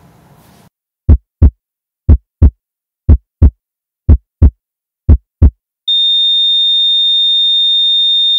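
Heartbeat sound effect: five loud, low double thumps, lub-dub, about one a second. Then a steady high-pitched flatline tone sounds and cuts off abruptly.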